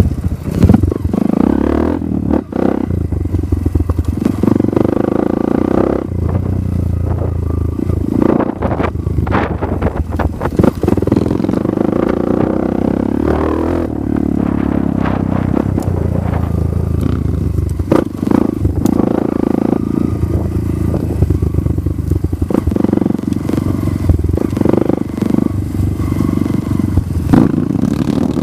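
Dirt bike engine running under load on a rough trail, its pitch rising and falling with the throttle. Scattered sharp knocks and clatter come through as the bike goes over bumps.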